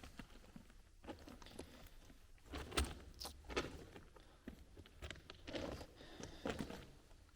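Handling noise: irregular clicks, rustles and knocks as objects are picked up and moved, with a sharper knock about three seconds in.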